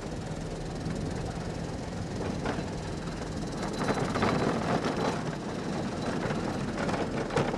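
Small engine-driven rail cart running along damaged track: a steady low engine hum under the rattle and clack of the wheels on the rails, with a few louder knocks about four seconds in and again near the end.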